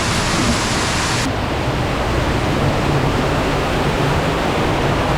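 Waterfall in a cave: a loud, steady rush of falling water. About a second in the sound abruptly turns duller as its hiss loses its top end.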